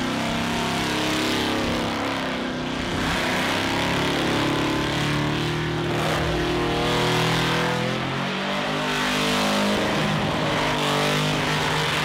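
Car engine held at high revs in a burnout, its pitch dropping and climbing again several times, over a constant hiss of spinning tires.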